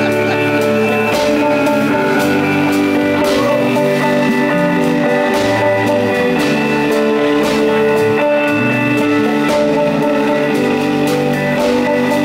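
Live rock band playing without vocals: electric guitar holding sustained chords over an electric bass line that steps between notes, with drum-kit hits throughout.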